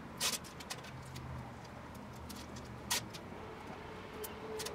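Adhesive Velcro's plastic backing film being peeled off and handled on a 3D-printed plastic holster: a handful of short, sharp crackles and rustles, the loudest about a third of a second in and again near three seconds.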